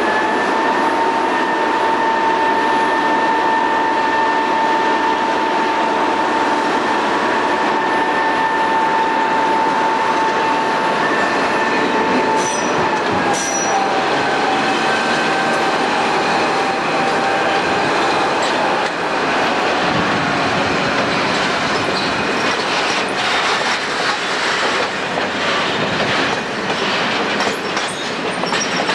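SJ T44 diesel-electric locomotive hauling a string of freight wagons at low speed. A steady high whine drops slightly in pitch about halfway through and fades. In the last third it gives way to rattling and clanking of wagon wheels over rail joints.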